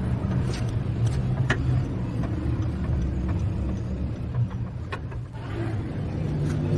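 Car engine running steadily at idle, with a few sharp clicks over it.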